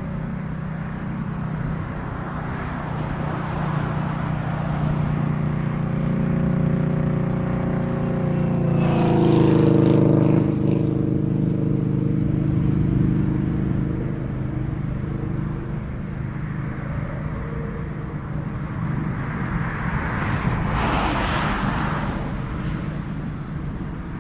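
A vehicle passing by over a steady low drone: its engine tones slide down in pitch as it goes past about nine seconds in. A second wash of passing noise swells near the end.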